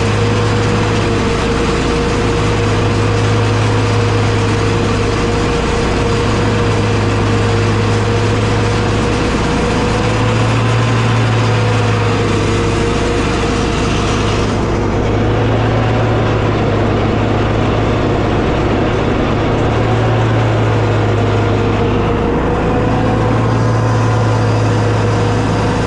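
Engine running steadily, with a constant mid-pitched whine over a low drone that swells and fades every couple of seconds.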